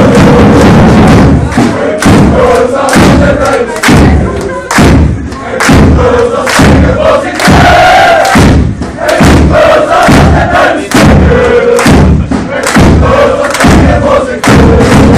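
Football supporters chanting together, with a steady beat of loud thumps about twice a second; the recording is overloaded and distorted.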